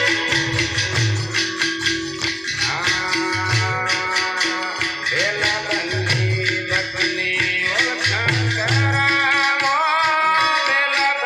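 Folk song: a man singing over jingling rattle-type percussion and a steady pulsing beat, his melodic lines gliding in and out at intervals.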